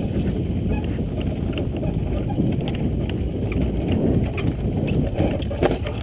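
Pickup truck driving over rough ground: a steady low engine and road rumble with scattered clicks and knocks, one of the sharpest near the end.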